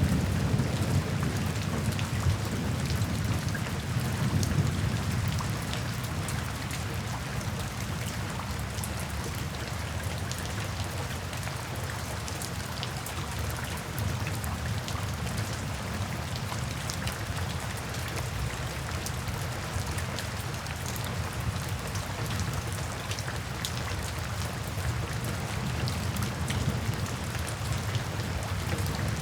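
Steady rain with individual raindrops hitting close by. A low rumble of distant thunder in the first few seconds fades away, and a fainter rumble builds again near the end.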